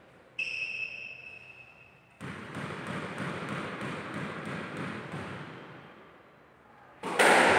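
Squash court sounds between points: a sharp ringing squeak about half a second in, a stretch of scuffing and shuffling noise in the middle, and a sudden loud smack of the ball near the end as play restarts.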